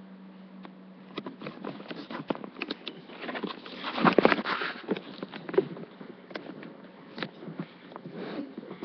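Handling noise from a recording device being moved and turned round: irregular clicks, knocks and rustles, loudest about four seconds in, over a steady low hum.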